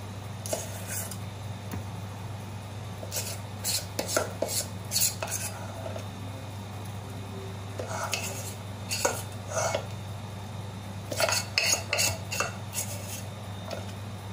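A steel spoon scrapes and clinks against a stainless steel pan and a steel box as thick kalakand mixture is scooped out and spread. The clinks come in irregular clusters over a steady low hum.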